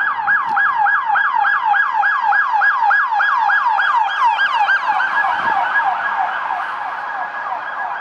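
Police car's electronic siren in a rapid yelp, sweeping up and down about four times a second. The sweeps quicken about halfway through, and the siren slowly fades toward the end.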